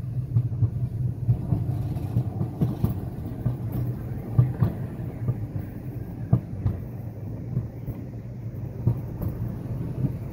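Mountain coaster cart rolling on its tubular steel rails at reduced speed: a steady low rumble with scattered short knocks.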